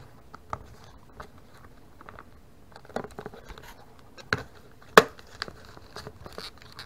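A small cardboard box sealed with adhesive being picked and pried at by hand: scattered scratches, taps and light crinkling, with a sharp click about five seconds in.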